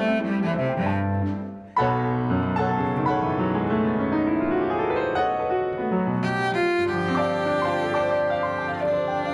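Cello and Blüthner grand piano playing classical music together. About a second and a half in, the sound dies away briefly, then comes back in suddenly and loud, followed by a rising run of notes.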